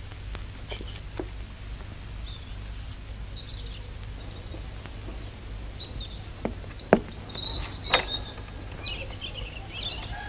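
Quiet film-soundtrack ambience with a steady low hum and faint bird chirps, broken by a few scattered light knocks. The two loudest knocks come about seven and eight seconds in.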